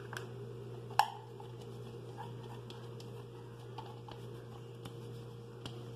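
Spatula scraping grated carrot out of a glass bowl: soft scrapes and a few light clicks, with one sharp knock against the glass about a second in, over a steady low hum.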